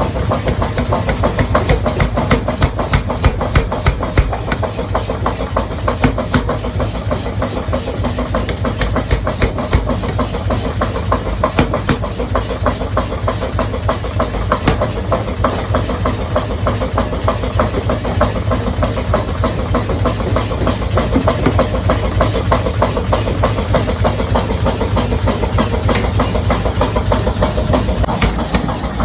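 Hammer-factory machinery running steadily, with a low hum under a dense, rapid clatter of knocks and a hiss.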